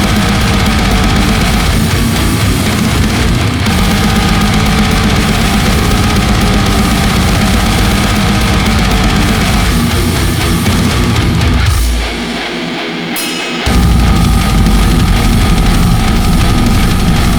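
Deathgrind metal track with distorted guitars and drums playing at full band. About twelve seconds in, the bass and drums drop out for roughly a second and a half, leaving a thinner passage, then the full band crashes back in.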